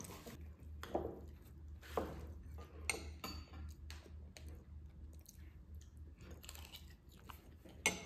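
A child eating bibimbap: a metal spoon clinking and scraping in a ceramic bowl now and then, the sharpest clink near the end, with chewing between, over a steady low hum.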